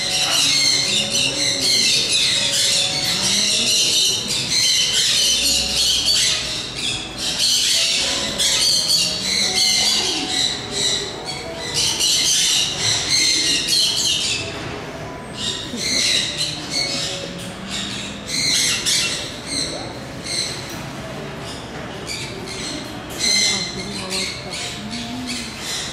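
Many birds squawking and chirping together, dense at first and thinning into separate bursts of calls about halfway through, with faint human voices underneath.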